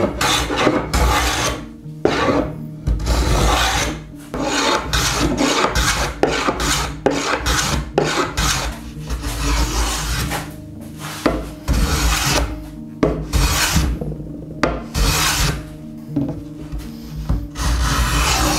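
A metal bench plane taking repeated strokes along the edge of a red oak board, the blade rasping as it cuts shavings. There is a stroke about every second, with short gaps between them.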